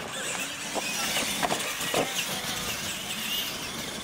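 Radio-controlled monster trucks racing on a dirt track, their motors whining and wavering in pitch, with scattered short knocks and clatters as they run over the course.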